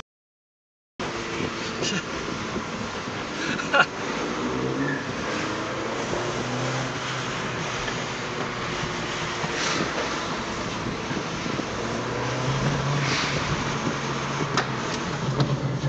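A car engine and road noise heard from inside the cabin while driving, the engine pitch rising and falling with the throttle. The sound starts after about a second of silence, and a sharp click comes about four seconds in.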